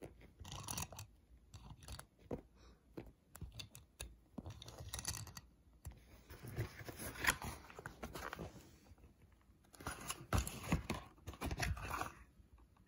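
Hands handling a Hot Wheels die-cast toy car and its cardboard packaging: irregular small clicks and scrapes, with a longer stretch of rustling in the middle.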